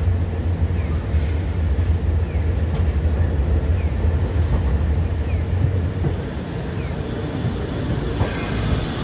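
Hiroden 800-series streetcar running in on street-running rails, with a steady rumble of motors and wheels. It gets louder and brighter as the car passes close by near the end. A short falling chirp repeats about every second and a quarter.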